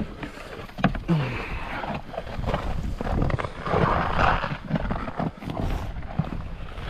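Wind buffeting the microphone with a steady low rumble. Scattered knocks and a louder rush of noise come about four seconds in.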